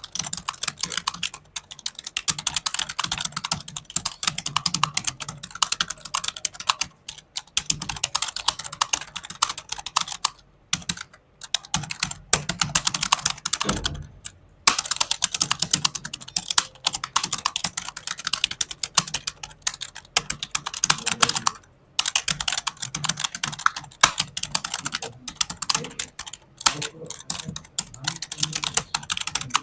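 Fast typing on a computer keyboard: a rapid, continuous clatter of keystrokes broken by a few short pauses.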